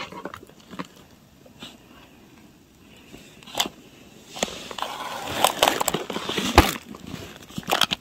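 Plastic packaging crinkling and rustling as bagged craft supplies are handled, with a few sharp clicks. It is sparse at first and becomes a dense crackle in the second half.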